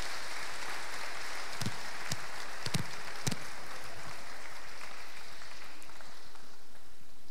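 Congregation applauding, the clapping thinning out and dying away near the end, with a few sharper knocks in the middle.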